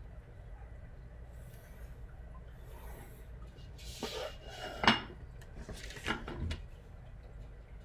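Faint pencil scratching along a ruler, then drafting tools handled on a desk: a plastic triangular scale ruler set down with a sharp clack about five seconds in, followed by a couple of softer knocks as a long straightedge is placed on the paper.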